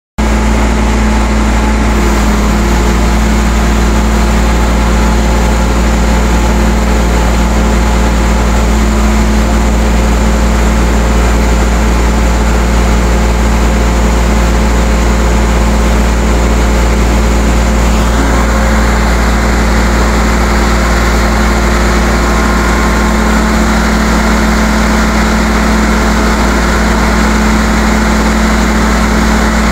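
Crane truck's diesel engine running steadily, driving the hydraulics as it lifts the streetcar; a deep, constant hum whose upper tone shifts slightly about two-thirds of the way through.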